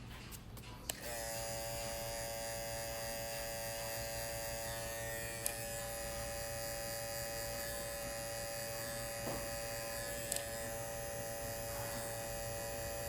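Cordless Babyliss Pro electric hair clipper switched on about a second in and running with a steady buzz.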